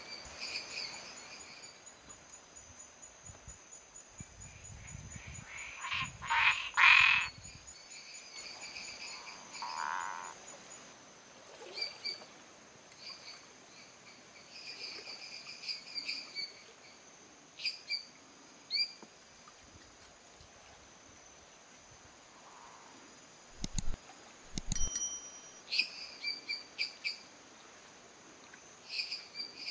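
Male Boana multifasciata tree frog calling in short, irregular series of notes, moving into its territorial call, the call a male gives when a rival male is close. Dendropsophus minutus frogs call in the background over a steady high-pitched whine, with a couple of low bumps about two thirds of the way in.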